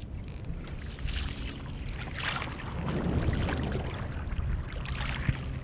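Water splashing and lapping around a kayak on the ocean, with wind on the microphone; the water noise swells twice, and a single sharp knock comes near the end.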